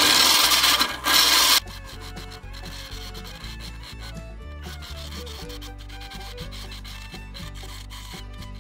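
Hollowing tool cutting inside a spinning box elder vase on a wood lathe: a loud rasping scrape for about the first second and a half, then much quieter, leaving the lathe's low hum with faint light ticks and scraping.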